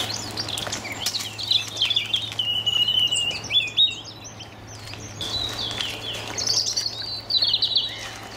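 Songbirds singing: quick chirps and warbled phrases, with a short lull about halfway through, over a faint steady low hum.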